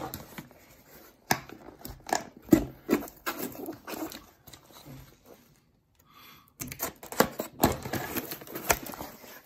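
Cardboard shipping box being handled and opened: irregular rustling, tapping and clicking, with a brief quiet pause about six seconds in and busier rustling after it.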